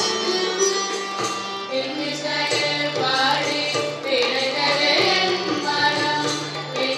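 A group of students singing a devotional bhajan with keyboard and percussion accompaniment. An instrumental phrase opens, and the voices come in about two seconds in.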